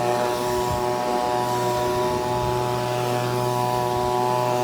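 Two handheld two-stroke leaf blowers, a Stihl BG 55 and an Echo, running together at full throttle on their throttle locks, giving a steady, even engine tone.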